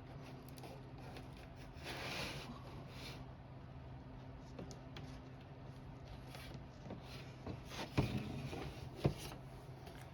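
Light handling noises from work on a window: a rub or scrape about two seconds in and two sharp knocks near the end, with scattered small clicks over a steady low hum.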